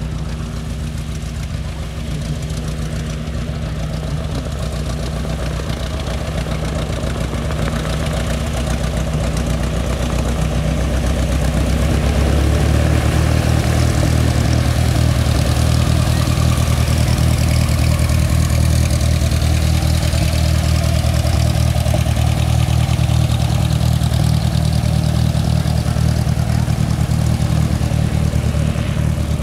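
Single-engine Cessna's piston engine and propeller running at taxi power, a steady drone that grows louder through the first third or so and then holds as the plane taxis close by.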